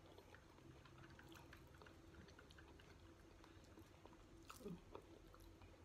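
Near silence with faint chewing: soft, scattered mouth clicks from someone eating kamote turon, a sweet-potato and jackfruit filling in a crunchy fried wrapper.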